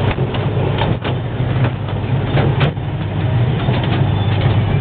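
Ride-on miniature train running along its track, heard from aboard an open carriage: a steady low rumble with a few sharp clicks.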